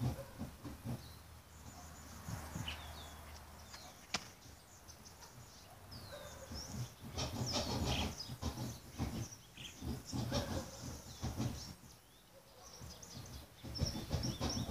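Irregular outdoor rustling and scuffing, with a few short bird chirps and a single sharp click about four seconds in.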